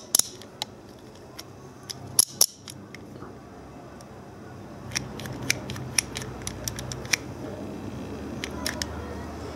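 Multi-size ratchet wrench clicking as its socket head is turned by hand: sharp metallic ratchet clicks in irregular runs. Two loud clicks come a couple of seconds in, and a quicker run of clicks follows about five seconds in.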